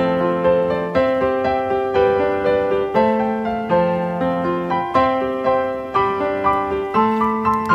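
Background piano music: a gentle melody of evenly paced notes over sustained chords.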